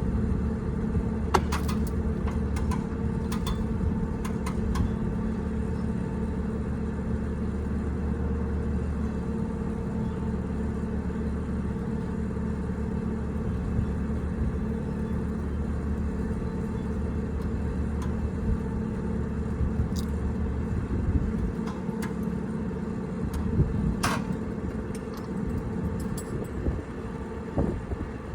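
An engine running steadily at idle, with a few sharp clicks and knocks of metal work over it; the low drone drops away about two-thirds of the way through.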